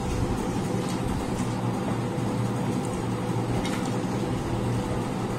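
Steady low mechanical hum of a motor or appliance running in the room, with a few faint clicks as hands work food on metal plates.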